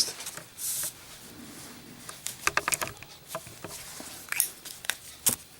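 Zippo windproof lighter with a steel insert being handled and lit: a brief scratchy rasp under a second in, then scattered light metallic clicks, a quick cluster of them about halfway through and a few more near the end.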